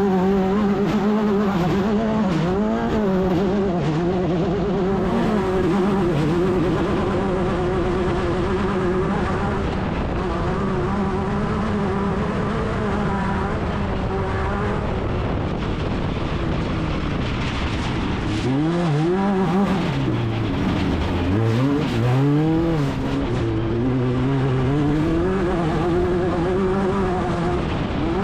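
Class 10 off-road race car's engine running hard, its pitch wavering steadily with the throttle, then dropping and climbing steeply several times in the second half as the driver lifts off and gets back on the gas.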